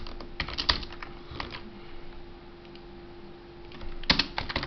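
Typing on a computer keyboard: quick runs of key clicks for the first second and a half, a pause, then another burst of keystrokes near the end.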